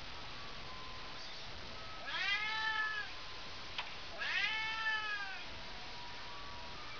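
A cat shut in a wire crate meowing twice, each meow drawn out for about a second and arching up then down in pitch, the second starting about a second after the first ends. A short click comes between the two meows.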